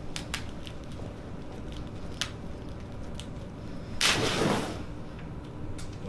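Y-strap neck traction on a patient lying on a chiropractic table: a short, loud rustling rush about four seconds in as the strap is pulled and the body is drawn along the padded table, with a few faint clicks before it.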